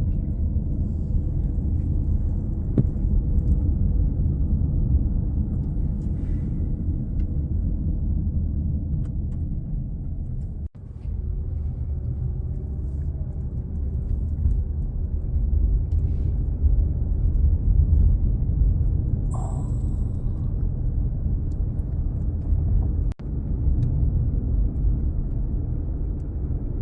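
Strong monsoon wind buffeting the microphone: a steady low rumble that drops out for an instant twice.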